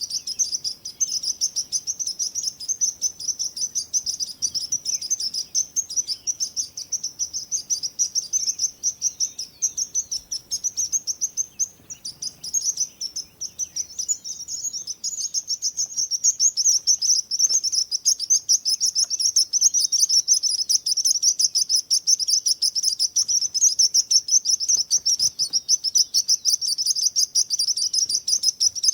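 Small birds chirping in a dense, continuous high-pitched chatter of rapid notes. The chirping thins briefly around the middle and is louder through the second half.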